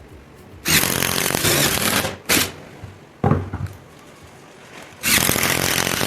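Electric drill boring into wood in two bursts of about a second each, the motor hum under a dense cutting noise, with a couple of short knocks in between.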